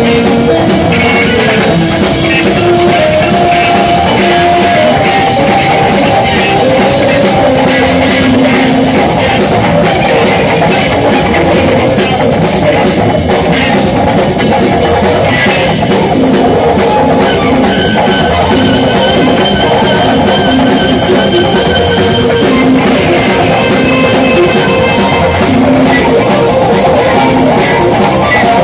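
Live instrumental jazz-rock band playing loud and steady: electric guitar over a busy drum kit with constant cymbal work. Higher sustained notes come in about two-thirds of the way through.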